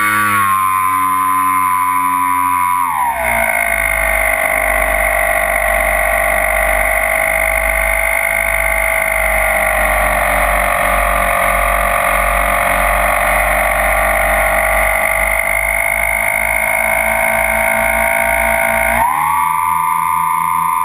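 The Twinstar's twin brushless electric motors and propellers whine from on board the plane. The pitch drops sharply about three seconds in as the throttle comes back, and a low rumble of wind runs under it. Near the end the pitch rises again as the motors spool back up.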